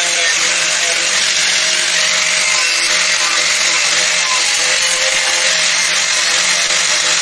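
Handheld electric power tool running continuously under load: a loud, even, hissing noise at a constant pitch with a faint hum beneath it.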